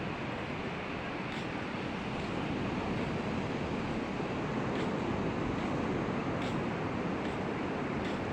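Sea surf washing onto a beach: a steady rushing of waves that swells a little in the middle.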